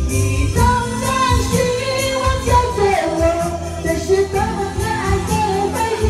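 A woman singing a Chinese pop song into a microphone over a karaoke backing track with a steady beat.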